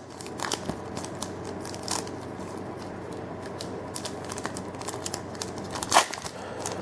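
A trading-card booster pack wrapper being torn open by hand, crinkling and rustling, with a few sharper crackles about half a second, two seconds and six seconds in.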